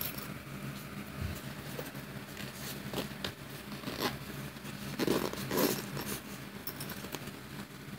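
Metal zipper being unzipped on a thin nylon stuff pouch, in a few short rasps with nylon fabric rustling, the loudest a little past the middle.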